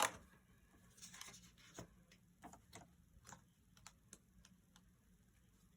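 Paper and glossy sticker sheets being handled and leafed through: faint rustles and light ticks, with one sharper click right at the start.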